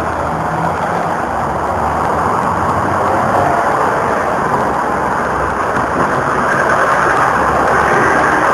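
Steady rushing roar of road traffic, swelling slightly near the end.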